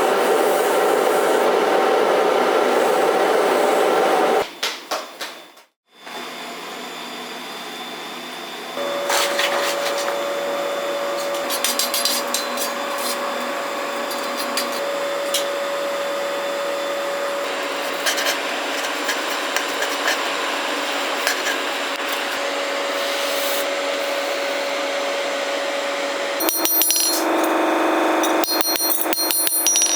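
Hand work with tools on a knife in several separate shots: rubbing and filing sounds with scattered taps and clicks. A steady tone runs through the long middle stretch, and the sound changes abruptly about four and a half seconds in and again near the end.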